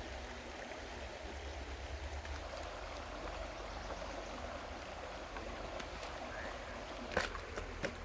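Pork sizzling in a frying pan, a steady hiss, with a couple of sharp clicks near the end.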